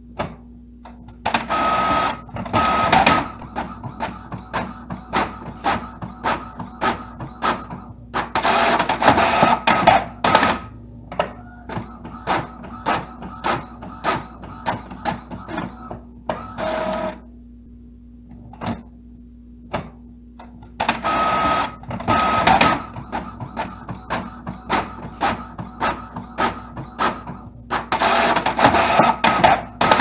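Multifunction printer printing a page on both sides (duplex). Loud mechanical bursts one to two seconds long come five times, with rapid clicking and a steady low hum between them.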